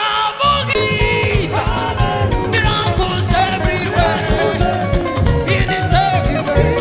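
Upbeat African gospel music played by a band, with a steady driving beat in the low end and melodic lines above it.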